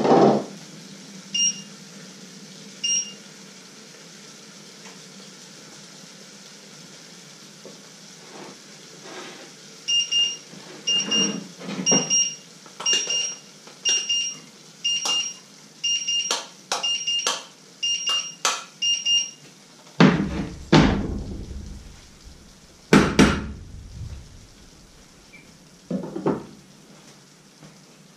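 Short electronic beeps from a kitchen appliance: two near the start, then a steady run of about a dozen, under a second apart. Clinks and knocks of a steel pot and utensils run through it, with a few heavy thumps about two-thirds of the way in as the pot is handled.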